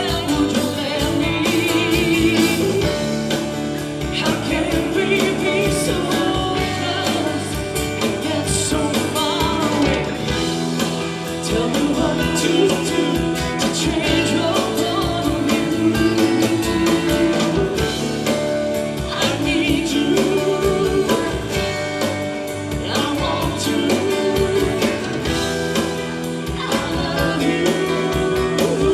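Live country band playing a song: a woman singing lead over electric guitars, bass, keyboards and a drum kit.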